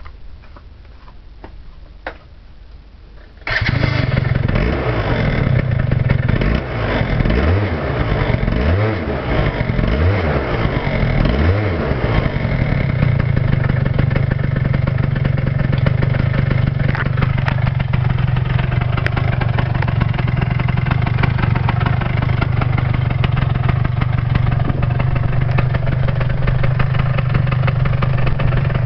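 Yamaha Grand Axis scooter's two-stroke single-cylinder engine, fitted with a PG H4C aftermarket expansion chamber, catching suddenly after a few seconds of quiet clicking. It is blipped about four times, pitch rising and falling with each, then settles to a steady idle.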